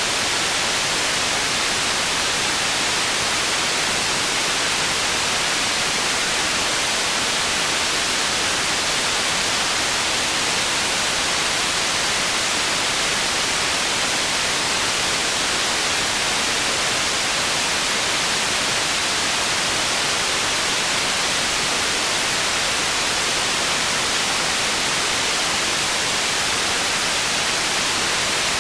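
Processed white noise for tinnitus masking: a steady, even hiss weighted toward the highs, with little low end.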